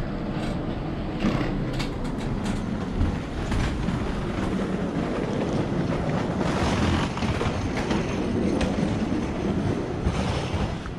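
Passenger train rolling along the platform: a steady rumble with occasional sharp clicks of the wheels.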